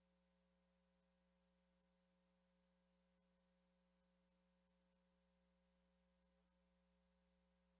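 Near silence: only a faint, steady hum and hiss.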